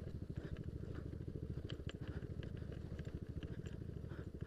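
Yamaha Aerox scooter's engine running steadily with rapid even firing pulses, with scattered light clicks and rattles from riding over a rough track.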